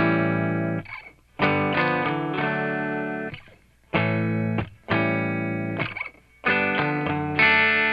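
Distorted electric guitar music: chords struck and held for one to two seconds each, with short breaks between.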